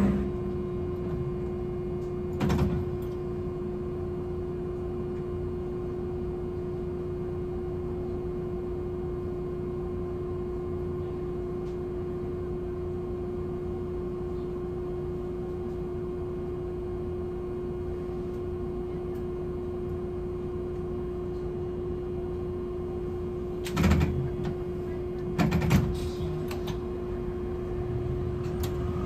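Hankai Tramway Type 701 tram heard from on board, standing still with a steady hum and one constant tone from its equipment. A short knock comes about two seconds in, and a few more clunks near the end.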